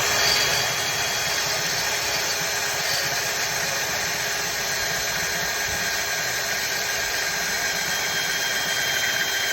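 Power drill running at full speed, its bit boring into a metal post: a steady high whine with a grinding scrape that starts abruptly and stops abruptly. Drilling metal this fast only kills the life of the bit and drills no faster.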